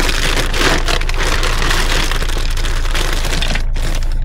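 Dense crinkling and crackling rustle of camping gear or a plastic bag being handled and packed, stopping abruptly near the end.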